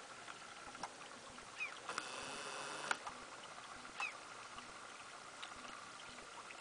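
Faint, many small plinks and splashes, like raindrops, from a shoal of tiny young saithe (sillocks) dimpling the sea surface. A buzzy sound lasts about a second from two seconds in, and two short chirps come through.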